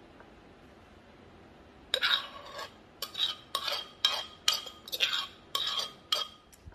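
Metal spoon scraping papaya salad out of a clay mortar in a run of about nine quick strokes, starting about two seconds in, each stroke with a light metallic ring.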